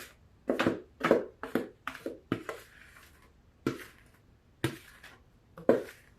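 Large spoon knocking and scraping against a mixing bowl in a series of short, irregular strokes, about two a second at first and then more spaced out, as brownie batter is scooped out.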